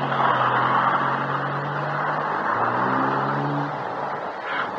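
Car engine running with road hiss as the car approaches. Its note holds steady, rises briefly a little after halfway, then drops away.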